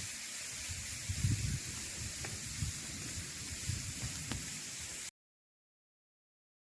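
Outdoor ambience with wind buffeting the microphone in low, irregular gusts over a steady hiss, and a couple of faint ticks; about five seconds in the sound cuts out to complete silence.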